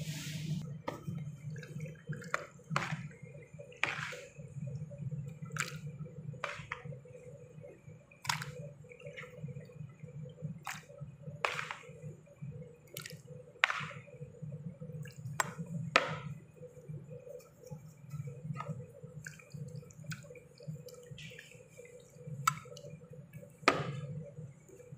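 A utensil clicking and scraping against a dish as penne in béchamel sauce is stirred: irregular sharp clicks about once a second with soft wet squishing, over a steady low hum.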